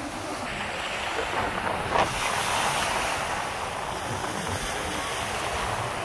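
Sea waves breaking and washing up the shore, with wind buffeting the microphone; a brief louder rush comes about two seconds in.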